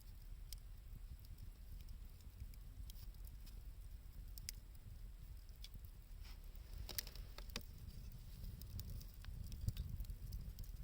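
Wood campfire crackling with scattered small pops, a few of them close together about seven seconds in, over a steady low rumble of blizzard wind.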